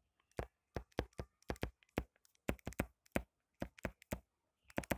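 A stylus tip tapping and clicking on a tablet's glass touchscreen during handwriting: short, sharp ticks at an uneven pace, about four a second, with silence between them.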